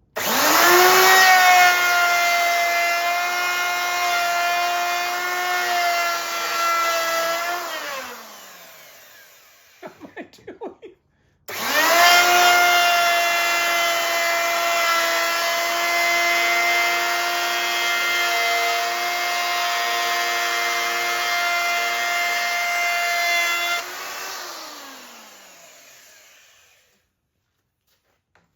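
Sears Craftsman ball-bearing router, rated 25,000 RPM, cutting a groove in a board: its motor spins up with a rising whine, runs steadily for about eight seconds and coasts down. After a few light knocks it is started again, runs about twelve seconds more and winds down near the end.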